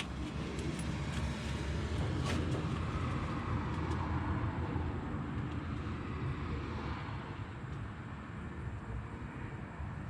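Handheld gas torch burning with a steady low roar while it heats a brass radiator seam for soldering, with a few light clicks in the first two seconds.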